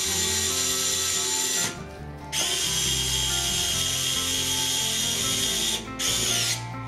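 Compact 3.6 V cordless electric screwdriver whirring as it turns a screw in a wall outlet's metal frame. The motor stops for about half a second roughly two seconds in and again briefly near the end, with its pitch sliding just before it stops.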